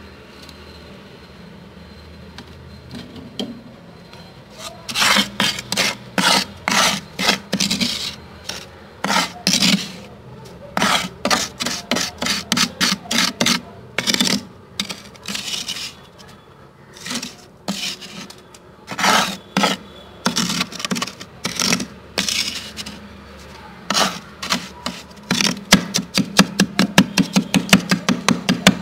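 Thick freezer frost being scraped with a plastic scoop: runs of short rasping strokes, a few a second, broken by brief pauses. They begin after a quieter first few seconds.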